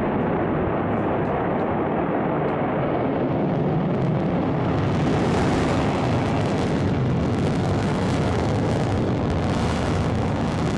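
Rokot launcher's first stage firing at liftoff and during the climb: a loud, steady rushing rumble, its hiss growing brighter from about four seconds in.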